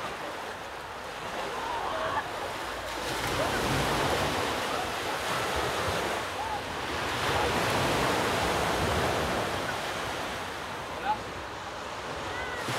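Sea surf washing on a rocky shore, swelling louder and easing off in slow waves, with one short sharp click near the end.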